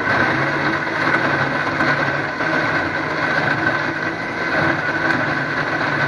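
Electric mixer-grinder with a steel jar running at a steady speed, grinding chilies: a loud, even motor whir.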